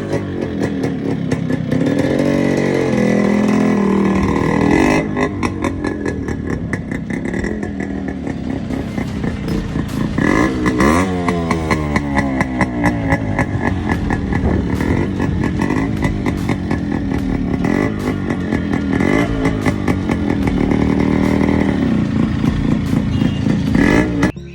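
Modified Yamaha RX100's single-cylinder two-stroke engine running with a rapid crackling exhaust beat, revved up and dropping back several times.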